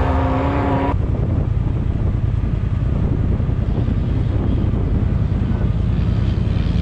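A steady pitched drone cuts off abruptly about a second in. Then a side-by-side UTV's engine and exhaust run with a loud, low rumble while driving, with wind noise on the microphone.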